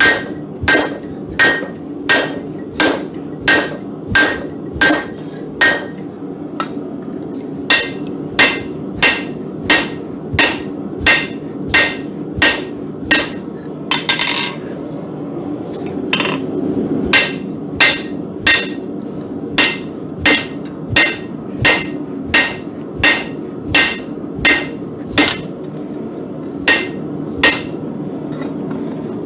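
Hand hammer striking hot mild steel being forged over an anvil's horn: a ringing blow about one and a half times a second, in runs broken by short pauses, over a steady low rumble.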